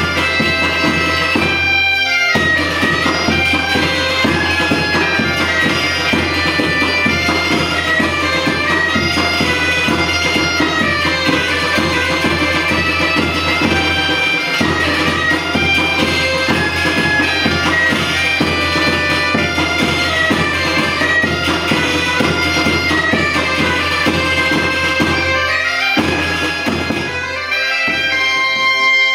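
Background music: a Galician bagpipe (gaita) tune, a melody played over a steady low drone that drops out briefly a few times.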